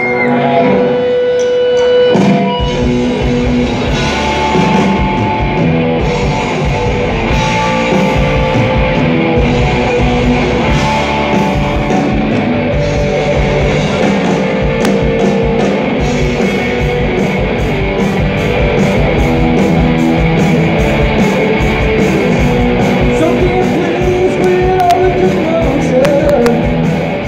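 Live rock band playing loudly, electric guitars over a steady beat.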